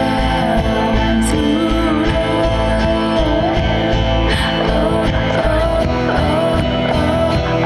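Music: an indie rock song with guitar, playing at a steady, loud level.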